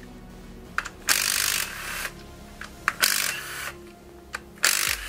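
Cordless driver with a 10 mm socket spinning out camshaft bearing-cap bolts on a Hyundai 1.8 Nu engine. It runs in three short bursts of about half a second each, roughly two seconds apart, with small clicks of the socket and bolts in between.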